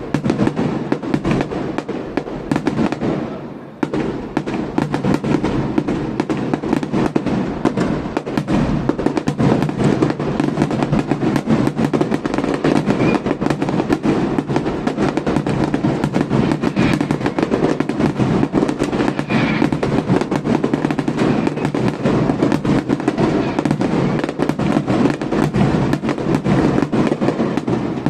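Aerial fireworks shells bursting in rapid succession: a dense, continuous run of bangs and crackling, with a brief lull about four seconds in.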